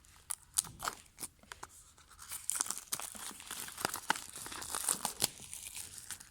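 Plastic shrink-wrap being torn and peeled off a small cardboard box by hand: a few sharp crackles at first, then about three seconds of continuous crinkly tearing.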